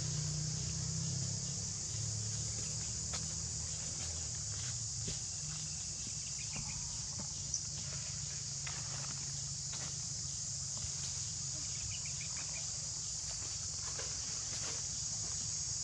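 Steady high-pitched insect chorus over a low steady hum, with scattered soft rustles and ticks.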